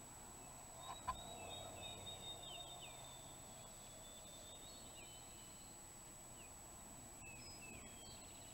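Wild turkey gobbler gobbling faintly about a second in, with songbirds singing thin, sliding notes behind it.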